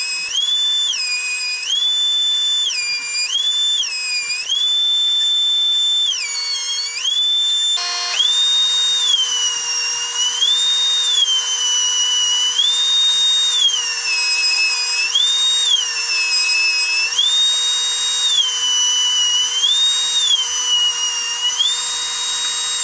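Table-mounted router running at speed with a high whine that sags in pitch each time a stile or rail piece is fed past the bevel-cut bit under load, then climbs back as the cut ends. The dips come over and over, every second or two.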